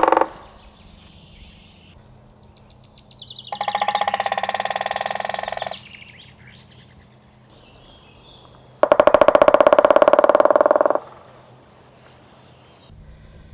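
White-backed woodpecker drumming on wood: two rapid rolls of about two seconds each, the second one louder, with faint chirps of small birds between them.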